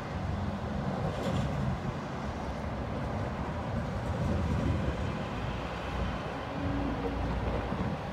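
Low rumble heard inside a Sapporo City Tram 8510-series streetcar, with a short steady hum about six and a half seconds in.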